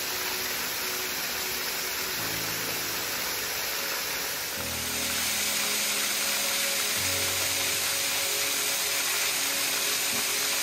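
Small waterfall dropping off a sandstone ledge onto boulders: a steady rushing hiss of falling water, which gets louder about four and a half seconds in. Under it, soft background music of held low notes that change every two or three seconds.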